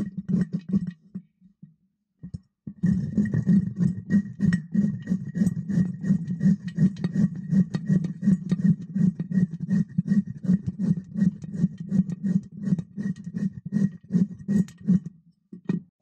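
Vegetables being grated by hand on a metal grater: steady rhythmic strokes, about two or three a second, with a pause of about two seconds near the start.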